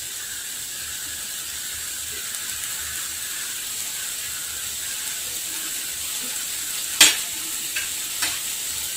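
Crumbled paneer bhurji sizzling steadily in a non-stick kadai on medium flame as it crisps. A sharp click comes about seven seconds in, with two fainter ones soon after.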